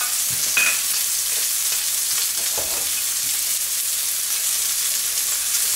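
Two peppered ribeye steaks sizzling steadily in hot oil in a frying pan, with a few faint crackles.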